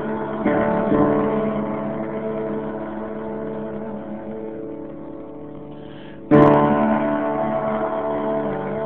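Instrumental music with no singing: held chords ring out and slowly fade, then a new, louder chord is struck about six seconds in.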